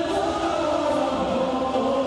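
Men's voices singing an Urdu devotional naat in long, slowly gliding held notes, a group of voices sustaining the melody together.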